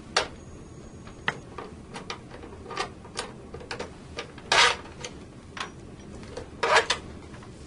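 A Phillips screwdriver working the screws out of a 3-pole IEC draw-out circuit breaker's front cover: scattered irregular clicks, with two longer, louder scrapes, one about halfway and one near the end.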